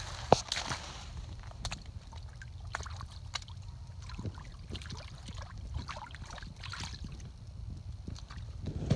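Boots stepping and sloshing in a shallow muddy puddle, with scattered small splashes and clicks over a steady low rumble, and one sharp knock just after the start.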